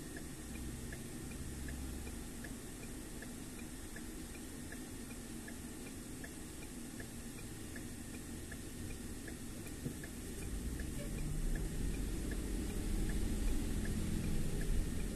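Car turn signal ticking steadily and evenly, over the low rumble of road and engine noise inside the car. The rumble grows louder about ten seconds in.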